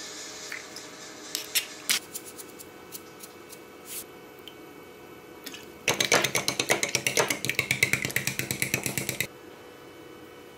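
Kitchen utensil work: a few scattered clicks and knocks, then a fast, even run of sharp strokes at about ten a second. The run starts a little past halfway and lasts about three seconds before stopping abruptly.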